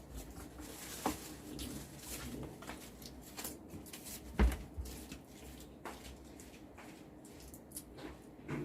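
Eating sounds at a seafood meal: scattered small clicks and knocks of shellfish shells being handled and eaten, with one louder knock about four and a half seconds in.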